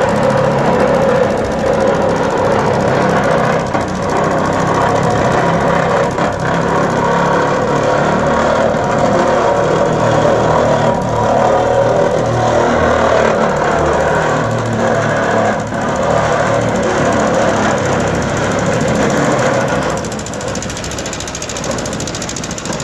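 Two-cylinder Lister diesel engine on a small road roller running steadily after a hand-crank start, with a rapid knocking beat. It becomes slightly quieter for the last few seconds.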